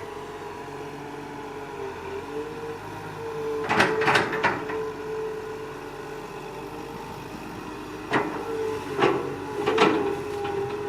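Excavator running with a steady whine that shifts slightly in pitch, broken by sharp clanks: three close together about four seconds in, and three more between eight and ten seconds.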